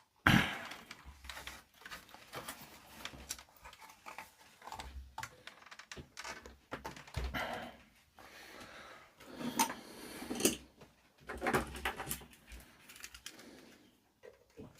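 Amplifier being turned over and handled on a workbench: a sharp knock just after the start, then scattered clicks, knocks and scraping handling noises.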